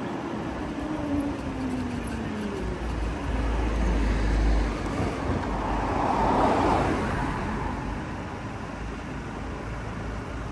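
City road traffic heard from a moving motorcycle: a faint whine falling in pitch over the first couple of seconds, a low rumble about three to five seconds in, and a vehicle passing close by, loudest about six to seven seconds in.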